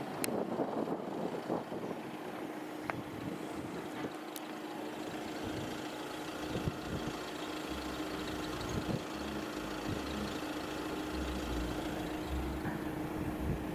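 A road vehicle's engine idling steadily, with some uneven low rumble of wind on the microphone.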